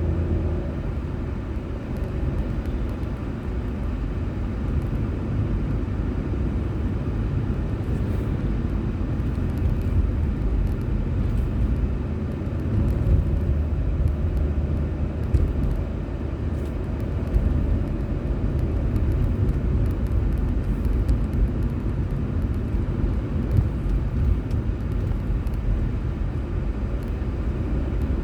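A car being driven, its engine and tyres making a steady low rumble as heard by a dashcam inside the car.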